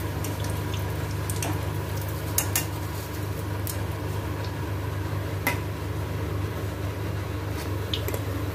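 Hot oil sizzling around rice balls deep-frying in an iron kadhai, with a few sharp pops and clicks scattered through. Some of the clicks come from a wire spider strainer knocking against the pan as it scoops the balls out of the oil.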